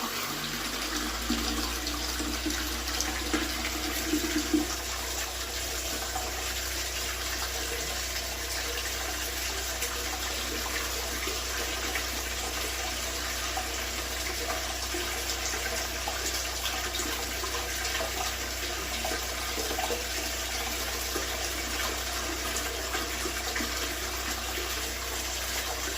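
Water rushing steadily as underfloor-heating pipes are flushed out, with a low steady hum starting about half a second in.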